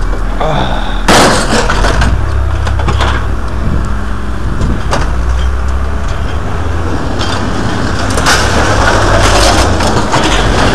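A vehicle engine idling steadily, with sharp clanks of scrap being thrown down several times, the loudest about a second in.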